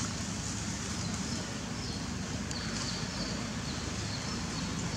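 Steady outdoor background noise: an even hiss over a low rumble, with no distinct animal calls standing out.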